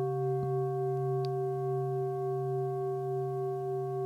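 A metal singing bowl ringing on after being struck, its low hum and several higher overtones holding steady with a slow wavering pulse. A faint click about half a second in.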